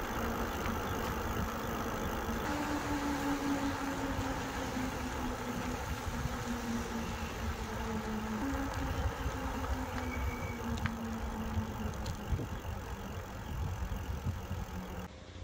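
Wind rumbling on the microphone while riding an electric bike, with a steady low hum. The hum steps up in pitch about two and a half seconds in and drops back about eight seconds in.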